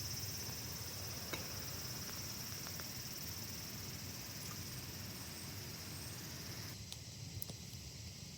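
Outdoor ambience: a steady high insect chorus over a low rumble, with a few faint ticks. The sound changes abruptly about seven seconds in.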